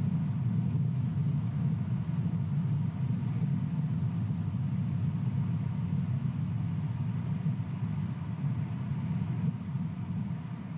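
Wind buffeting the nest camera's microphone: a steady, low, fluttering rumble with no distinct calls or knocks.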